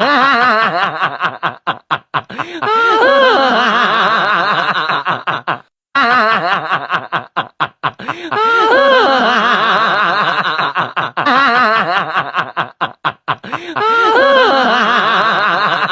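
A looped laughing sound effect: bouts of snickering laughter with choppy, stuttering breaks, the same stretch repeating about every six seconds.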